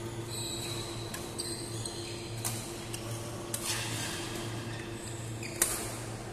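Badminton rackets striking a shuttlecock during a doubles rally: a string of sharp hits one to two seconds apart, the loudest near the end, with short squeaks from court shoes on the floor early on, over a steady low hum.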